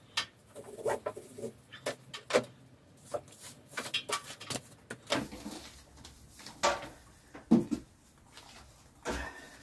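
Fabric webbing lifting strap being untied, pulled and gathered up by hand: irregular rustles, slaps and light knocks.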